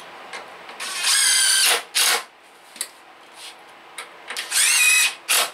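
Cordless DeWalt drill driving deck screws through a pine seat slat into the chair frame: the motor whines in two short runs, about a second in and again near the end, each under a second long, with a few light knocks between.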